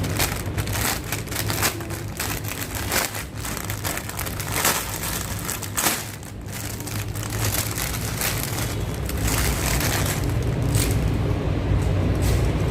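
Plastic packaging crinkling and rustling in quick irregular crackles as a bird toy is unwrapped, with a steady low rumble underneath that grows louder near the end.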